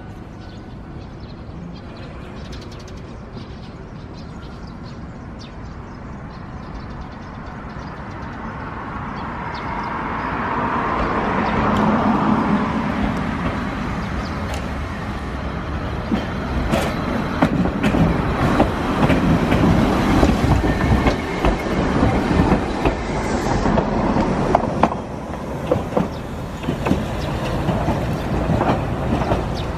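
A Hankai Tramway Mo501-type tram pulling away and coming closer, its motor and running noise swelling over the first dozen seconds. As it passes, the wheels click repeatedly over rail joints and points. Near the end, a 1101-type low-floor tram runs slowly into the stop.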